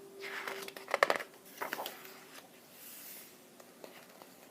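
Picture-book page being turned: paper rustling and crinkling, with a few sharp crackles about a second in, then fainter rustles.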